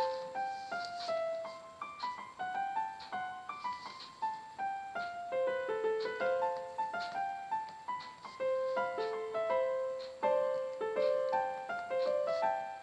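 Background music: a light piano melody of short single notes, several a second, stepping up and down.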